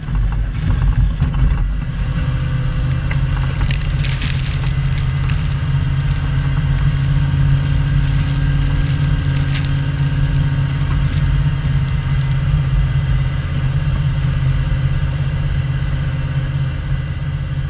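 A pickup truck's engine running at a steady pitch as the truck pushes snow with a front-mounted plow blade, with the crunch and scrape of snow against the blade. A couple of brief, sharper clatters stand out about four and nine and a half seconds in.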